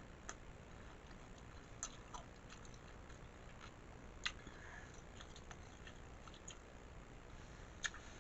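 Faint wet mouth sounds of someone chewing food close to the microphone, with a scattering of short sharp clicks and smacks; the loudest comes a little past halfway and another near the end.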